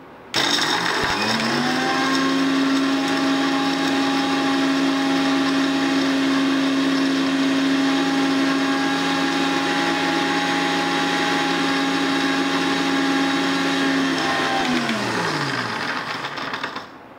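Electric mixer grinder with a steel jar running. The motor spins up within about a second to a steady whine, holds it, and then near the end is switched off and winds down with a falling pitch.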